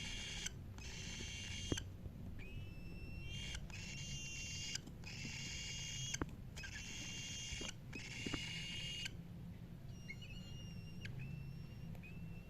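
Cockatiel calling over and over: harsh, drawn-out calls about a second long, then from about nine seconds in, shorter, clearer chirps repeating less than a second apart. A few sharp clicks fall between the calls.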